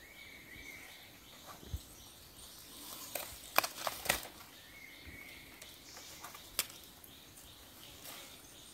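Sharp clicks and knocks, several in a quick cluster about three to four seconds in and single ones before and after, as a fish-trap line and the brush at the creek edge are handled. Faint birds and insects chirp steadily throughout.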